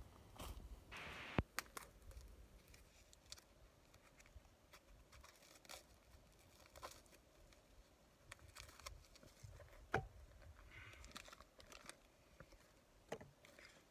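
Faint scattered rustling, crinkling and small knocks, as things are handled close to the microphone. There are sharper clicks about a second and a half in, again about ten seconds in and once more near the end.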